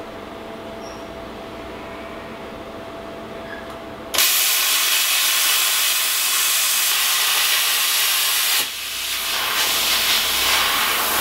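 Plasma cutter cutting steel: a low steady hum, then about four seconds in a sudden loud, even hiss of the arc and air jet starts, drops off sharply just over eight seconds in and picks up again soon after.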